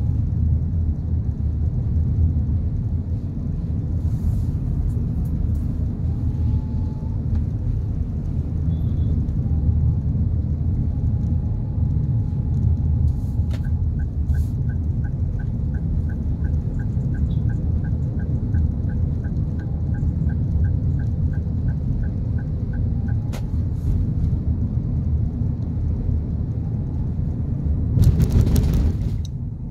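Inside the cabin of a 2022 Toyota Avanza 1.3 CVT on the move: steady low road and engine rumble. About a third of the way in, a click, then the turn-signal indicator ticks evenly, about two and a half ticks a second, for roughly ten seconds before another click stops it. A brief rush of noise near the end.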